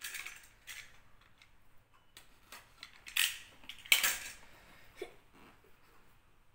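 A plastic box cutter handled on a hard tabletop next to a cardboard box: a few separate clattering knocks and scrapes, the loudest about four seconds in.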